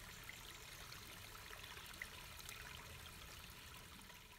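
Near silence: a faint, steady hiss of room tone or microphone noise with a few tiny ticks, starting to drop away at the very end.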